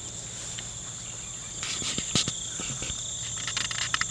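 Crickets trilling steadily in one high, unbroken tone. In the second half, soft rustles and light knocks of footsteps through grass.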